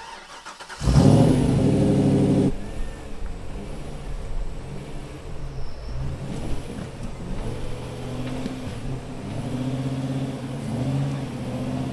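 Rock-crawler buggy's engine running under load as it climbs over boulders, the revs rising and falling in short bursts. It is loudest for a second or two about a second in.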